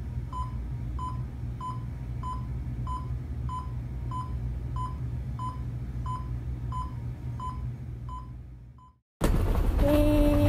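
Welch Allyn vital-signs monitor giving its pulse beep, one short high beep with each heartbeat at about one and a half beeps a second, over a steady low hum. The beeps fade out near the end, and after a moment's silence a louder steady rumble with a faint falling tone begins.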